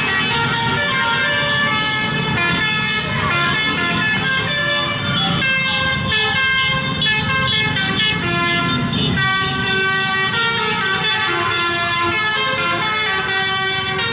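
Indonesian bus's basuri musical horn playing a telolet melody: a continuous run of loud horn notes stepping from pitch to pitch with no pause.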